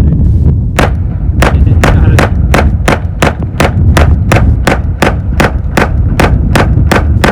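Glock 44 .22 LR pistol in a Micro Roni chassis firing a long string of rapid semi-automatic shots at a steady pace of about three a second, with no stoppages. It cycles reliably with its aluminum magazine adapter.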